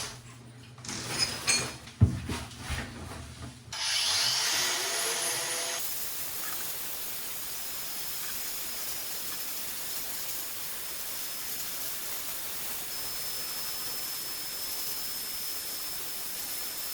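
Knocks and scraping of tools working loose bathroom wall tiles. From about four seconds in, a steady, even hiss takes over.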